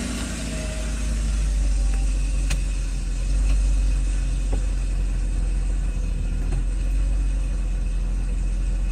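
Mercedes-Benz SL600's V12 engine idling steadily just after start-up, its idle speed settling under a repaired electronic throttle (E-gas) control module.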